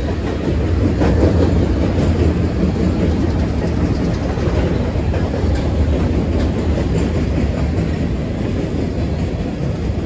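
Freight cars of a long train rolling past at speed: a steady rumble of steel wheels on the rails, with faint clicks scattered through it.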